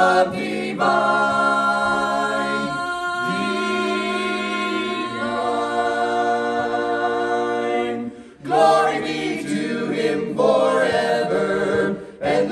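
A small vocal group singing a gospel hymn in close harmony with no instruments heard, holding long chords, with a short break about eight seconds in before the next line.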